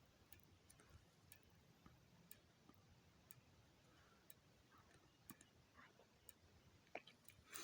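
Faint ticks about once a second from a System Sensor SpSW speaker strobe flashing, the click of each strobe flash, over near silence.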